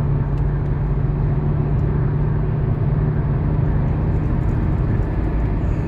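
Volkswagen Golf Mk4 R32's 3.2-litre VR6 engine running at a steady pitch as the car drives at speed, heard from inside the cabin together with tyre and wind noise.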